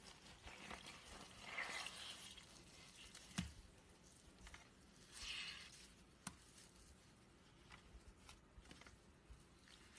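Faint squishing and crackling of glitter-coated slime being squeezed and pulled apart by hand, with scattered small clicks, two soft squelches and a couple of sharper pops.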